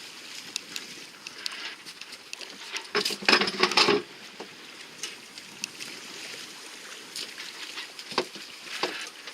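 Water sloshing and lapping around a small boat, with a loud splashing surge lasting about a second about three seconds in and scattered light clicks.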